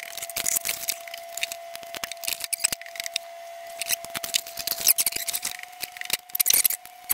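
Ratcheting wire crimpers clicking irregularly while crimp connectors are worked onto thin wires, mixed with the handling of small parts. A faint steady tone runs underneath.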